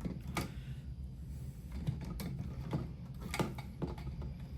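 Light clicks and rustles of electrical wires and push-in connectors being handled, a handful of separate sharp clicks spread through the stretch over a low steady hum.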